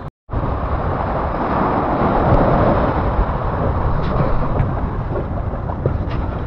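Steady outdoor rushing noise with wind buffeting the microphone, starting right after a brief cut to silence, with a few faint ticks.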